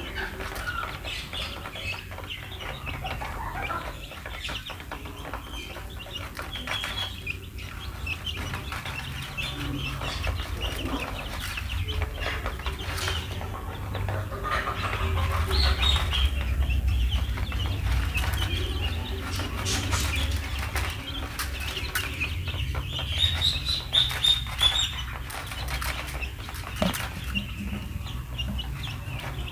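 A flock of two-week-old chicks peeping continuously while they feed, many short high cheeps overlapping. A steady low rumble runs underneath, strongest around the middle.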